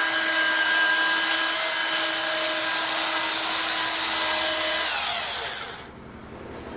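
Nodha pipe cutting and beveling machine's motor running with a steady whine, then switched off about five seconds in, its pitch falling as it winds down to a stop.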